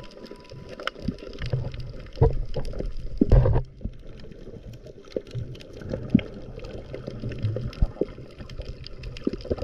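Water heard from an underwater camera: muffled sloshing and gurgling with scattered small knocks and clicks. There is a louder gurgling burst about three and a half seconds in.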